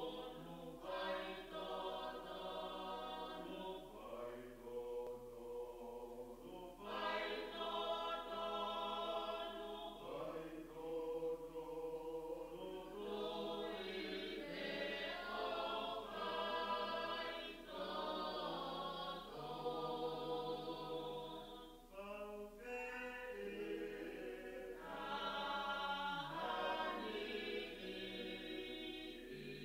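Choir singing a hymn in long held phrases, with short breaks between them.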